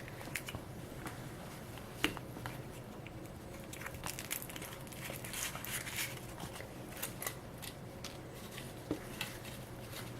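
Foil wrapper of a Kinder Surprise chocolate egg being peeled off and crinkled: a scatter of small, quiet crackles and clicks, with a sharper click about two seconds in.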